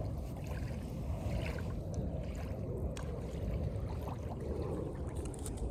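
Steady outdoor ambience beside open water: a low rumble of wind on the microphone with faint trickling water and a few small ticks.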